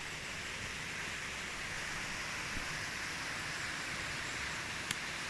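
Steady rush of a waterfall's falling water, an even hiss, with one short click near the end.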